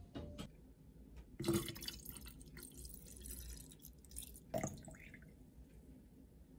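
Water splashing and dripping in a glass bottle of cold water with tea bags steeping in it, with two short knocks, one about a second and a half in and another near four and a half seconds.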